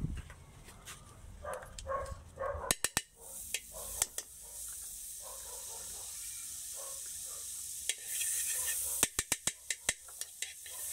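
Margarine sizzling as it melts in a hot wok, with sharp metal clicks of a spoon knocking against the pan. The sizzle swells about eight seconds in, followed by a quick run of clicks.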